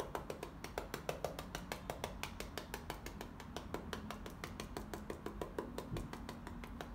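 A paintbrush dabbed repeatedly on canvas, stippling acrylic paint, making a quick, even run of soft taps, several a second.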